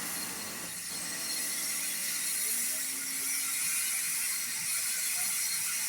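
Steady hiss of steam escaping from the whistle line after a steam whistle blast, with faint clicking.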